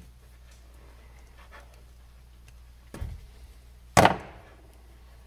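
Faint small clicks of hand wire strippers working on cord wires, then a knock about three seconds in and a loud sharp clack a second later as the metal strippers are set down on the tabletop.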